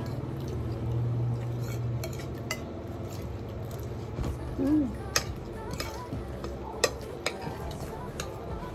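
Metal spoons scraping and clinking against plates as people eat, with a few sharp clinks a little after five and about seven seconds in.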